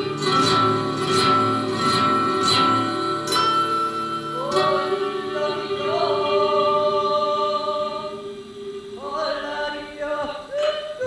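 Live music: plucked guitar notes ring over held tones, then from about four and a half seconds a voice sings long notes that slide up into pitch, with several short rising slides near the end.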